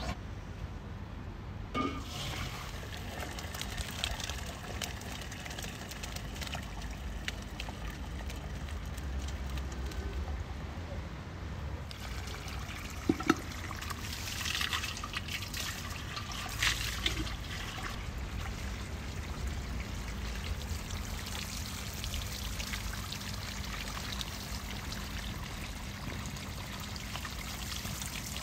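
Water trickling steadily, with a few light knocks and clicks scattered through it.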